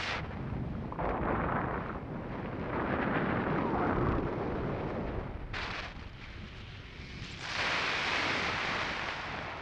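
Wind rushing over an action camera's microphone in paraglider flight, coming in gusts that swell and ease, with a short sharp buffet about halfway and a strong gust near the end.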